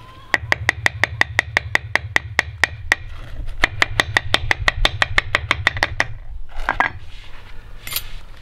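Iron ingot mould rapped upside down against concrete in quick, even knocks, about four or five a second with a metallic ring, to shake the cast ingot loose. The knocking stops after about six seconds and is followed by a short scraping clatter as the ingot comes free.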